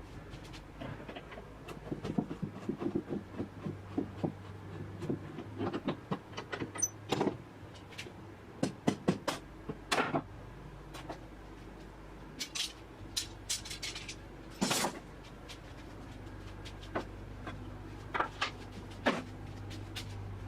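Irregular knocks and clicks, some sharp, over a steady low hum.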